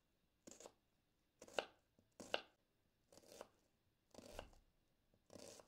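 Kitchen knife slicing through an onion onto a wooden cutting board: six separate cuts about a second apart.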